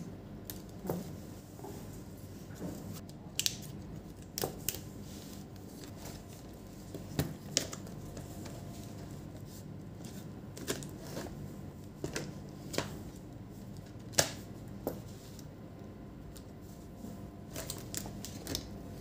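Hands working on an opened Acer TravelMate P214-53 laptop while the display is separated from the base: scattered sharp clicks and light knocks of its plastic and metal parts, about a dozen, the loudest about three-quarters of the way through.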